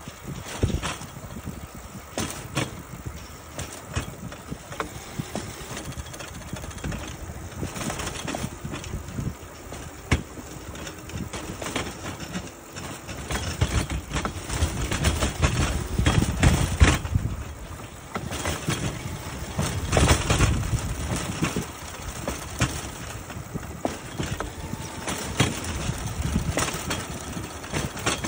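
Rail bike's small steel wheels rolling along railway track: a continuous rumble and rattle of the frame with scattered clicks and knocks, growing louder for a few seconds around the middle.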